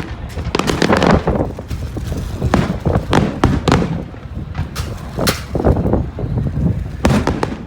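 Fireworks going off: a run of sharp bangs and crackles at irregular intervals.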